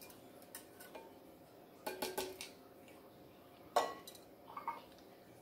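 A few light clinks and knocks of kitchenware being handled, with the sharpest knock about four seconds in.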